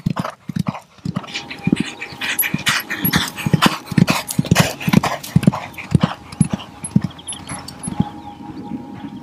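Racehorse galloping over soft ploughed ground: regular hoofbeats at about two strides a second, growing fainter near the end as the horse moves off.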